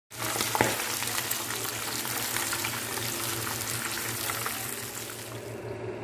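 Small whole birds frying in hot oil in a pan, a dense sizzle with sharp crackles and spits of oil; the sizzle drops away just before the end. A steady low hum runs underneath.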